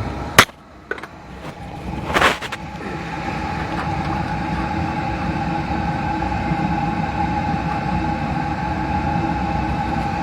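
Beckett oil burner firing on a boiler, a steady low rumble with a steady hum. A sharp click about half a second in and a short noisy burst about two seconds in break it, after which the steady running sound builds back up and holds.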